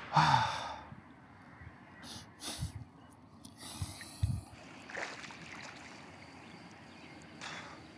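A swimmer's sharp breaths and gasps at water level, with water sloshing and splashing in short bursts close around the camera, then a faint steady lakeside hush from about five seconds in.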